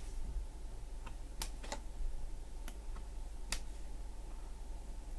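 Craft knife blade cutting through the small tabs holding a part in a laser-cut cardboard sheet: a few sharp, faint clicks at irregular intervals.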